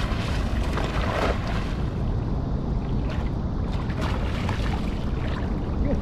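Wind buffeting the microphone, a steady rough rumble, over the wash of water, with a few brief splashy bursts.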